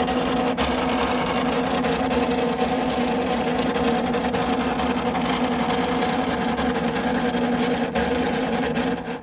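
A failing fan running loudly with a steady hum and a dense grinding rattle, then stopping abruptly near the end as the fan dies.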